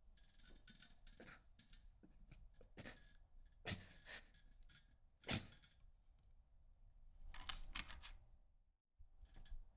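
Quiet clinks and small clicks of a metal bullet and instruments against an enamel kidney dish, with two sharper clinks in the middle and a quick run of scraping clicks near the end as the bullet is picked out of the dish.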